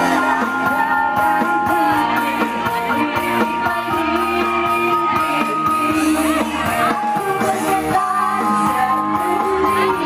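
Amplified live band music with a steady beat and held melody lines over it.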